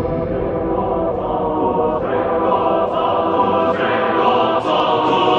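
Music with choir-like singing voices.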